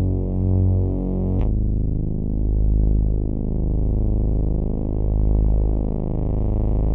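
Synthesizer drone played through a 'cloud' reverb module: a sustained low, many-toned sound that slowly swells and pulses, dropping to a lower pitch about a second and a half in.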